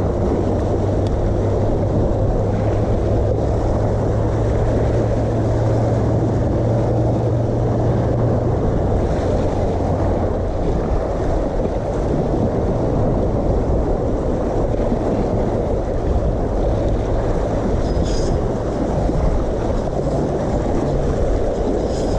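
Wind blowing across the microphone, with choppy bay water slapping and splashing against the rock wall, making a steady dense rush.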